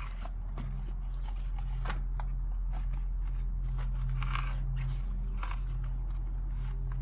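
Rustling and light clicking of a bicycle tire being handled and felt around its inside for sharp objects, over a steady low hum.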